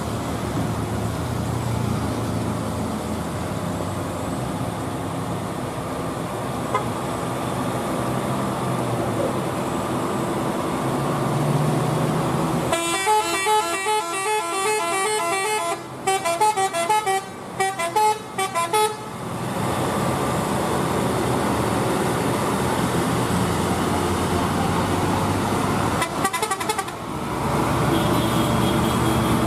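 Heavy vehicle engines running on a steep road climb; about halfway through, a multi-tone vehicle horn plays a quick, stuttering run of changing notes for several seconds, then the engine noise carries on.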